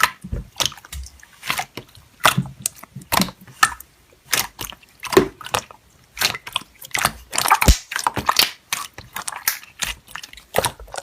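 Slime being squeezed and pressed by hand, making an irregular run of sticky clicks and crackling pops.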